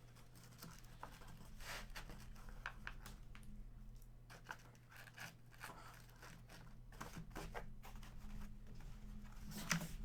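Trading card pack wrappers being torn and crinkled and cards handled: irregular rustling and scraping, with a sharper snap near the end. A steady low electrical hum runs underneath.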